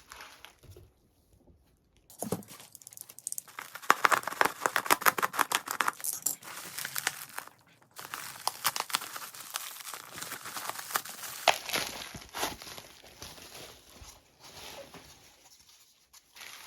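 Packaging being crinkled and torn open by hand during an unboxing: dense crackling and rustling that starts about two seconds in, breaks off briefly near the middle, then goes on more softly.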